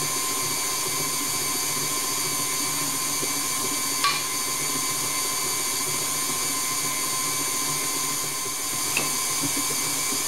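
Electric mixer running steadily at speed, creaming butter, light brown sugar and golden syrup into a batter, with a steady whine. Two light knocks come about 4 and 9 seconds in.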